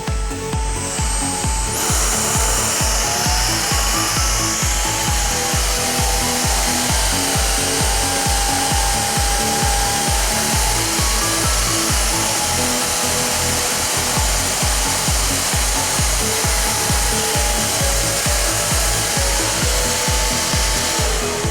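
Samsung SC 8870 bagless vacuum cleaner switched on about two seconds in: the motor whine rises to a steady pitch over a loud hiss of air, then winds down near the end. Background music with a steady beat plays throughout.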